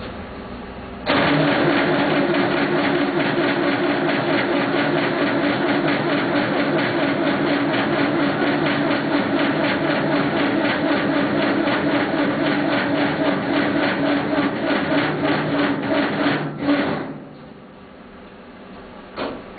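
1976 Massey Ferguson 50D backhoe's diesel engine being cranked by its starter for about fifteen seconds, with an even, fast rhythm of compression strokes. The starter then stops without the engine catching: a failed cold start on a weak battery boosted from a charger.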